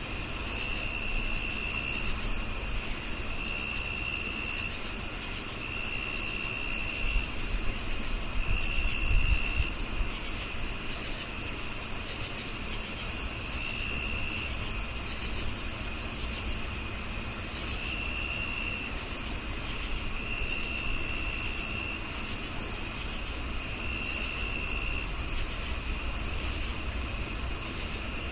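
Crickets chirping: one calls in short, even chirps about three a second over a steady high trill, while another trill comes and goes in bouts of about a second. A low rumble swells briefly about a third of the way in.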